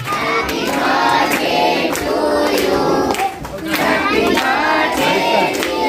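A group of voices, children among them, singing together with hand claps.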